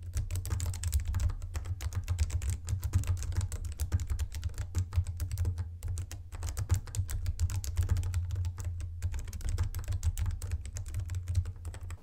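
Fast, continuous typing on a Corne split mechanical keyboard with tactile brown switches: a rapid, uneven run of key strokes.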